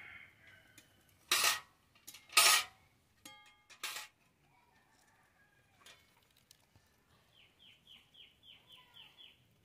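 A metal cooking pot and spatula clank and scrape a few times in the first four seconds, one knock leaving a short metallic ring. Near the end a bird calls in a quick run of about eight short chirps.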